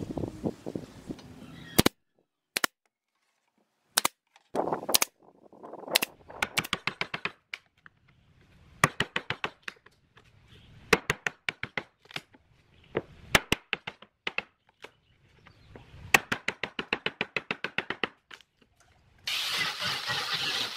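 Small hammer rapidly tapping a chisel along the edge of a wood and resin slab, in short trains of sharp strikes. About nineteen seconds in, an angle grinder with a sanding pad starts and runs steadily, sanding the slab.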